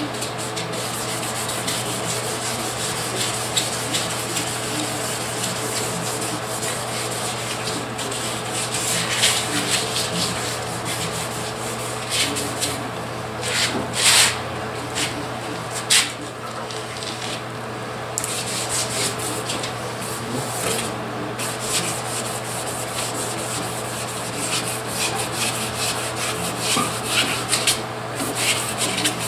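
Wet sandpaper rubbed in continuous strokes over the truck's fresh Rust-Oleum paint, a steady scratchy hiss with a few louder strokes midway. This is color sanding: wet-sanding the paint to knock down orange peel and get the high spots down.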